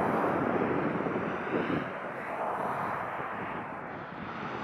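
Steady hiss and rumble of distant road traffic, easing slightly about two seconds in.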